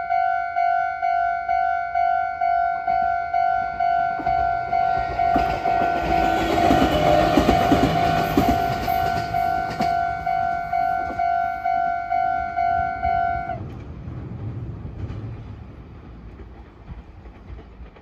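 Japanese level-crossing warning bell dinging steadily about twice a second while a Meitetsu Bisai Line train runs through the crossing, the train loudest about 6 to 9 seconds in. The bell cuts off abruptly a little after 13 seconds, and the train's rumble fades away.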